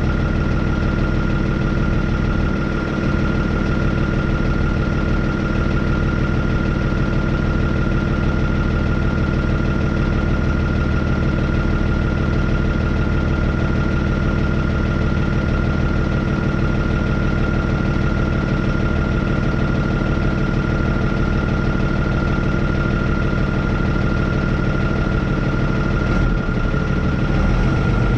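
Hino medium-duty truck's diesel engine idling steadily, with a steady high-pitched whine over the engine note. The engine is running its air compressor to build brake air pressure after ice was cleared from the air lines.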